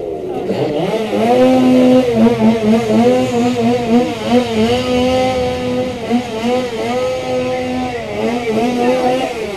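A small engine revving, climbing in the first second and then held at a high, steady pitch with brief stutters and dips.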